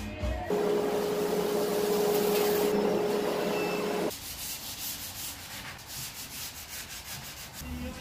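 Electric sander running on a pine board with a steady motor hum. It starts about half a second in and cuts off suddenly after about three and a half seconds, followed by fainter, repeated rubbing strokes.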